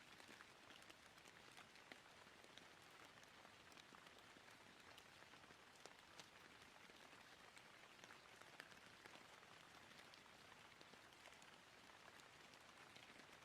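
Light rain falling: a faint, steady hiss with scattered drop ticks.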